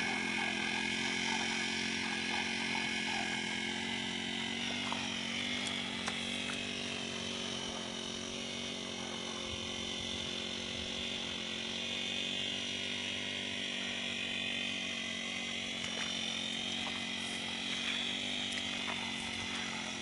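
Brush cutter's small GX35 four-stroke engine running steadily, its pitch dipping and recovering a little a few times.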